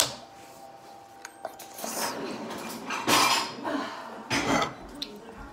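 Tabletop handling of a small metal flashlight and an egg: one sharp knock at the start, then a few short scrapes and rustles while the egg is pressed onto the flashlight's lens to candle it.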